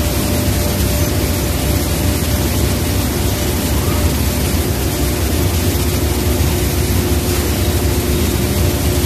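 Loud, steady machinery noise around a robotic bag-palletizing line, an even hiss-like din with a faint steady hum; a second, lower steady tone sets in about halfway through.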